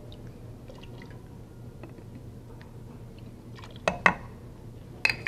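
Thick butternut squash soup being stirred in a pot as milk is mixed in, with soft wet squishing. Sharp knocks come twice in quick succession about four seconds in and once more near the end.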